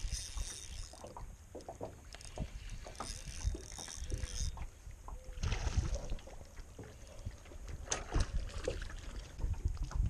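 A hooked largemouth bass being reeled in on a spinning reel, splashing at the surface beside the boat about six seconds in, with scattered clicks and handling noise over a low wind rumble on the microphone.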